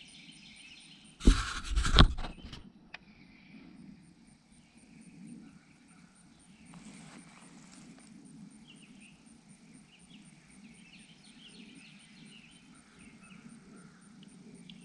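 Outdoor ambience of birds chirping over a steady low hum, broken just over a second in by a brief loud burst of noise with two peaks.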